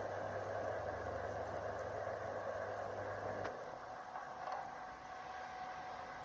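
Induction stove running under a pan of simmering water with a steady electrical hum and high whine, which cut out about three and a half seconds in, leaving a faint hiss.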